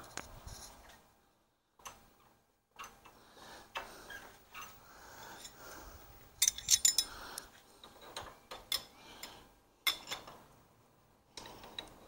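Metal wrenches clinking and ticking on the clutch-lever adjustment nuts of a California Trimmer reel mower as the top nut is tightened against the held bottom nut, to tension the drive belt. Scattered sharp clicks, with a quick run of them about six and a half seconds in and another near ten seconds.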